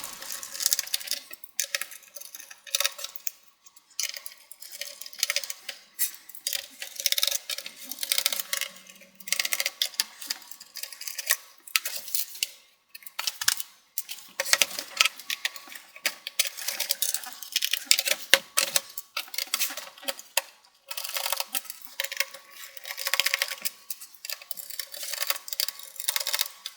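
Rapid, dense clicking and ticking of a screwdriver backing the screws out of an HP Pavilion 15-ab022ca laptop's plastic bottom panel, sped up as a time-lapse.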